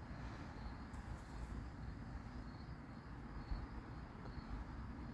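Faint outdoor ambience with a low steady rumble and faint, high, short chirps repeating at irregular intervals.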